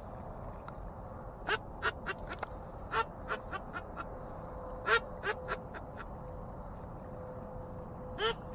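Duck quacking in quick strings of short, clipped quacks: a run of several starting about a second and a half in, a second run a few seconds later, and a couple more near the end.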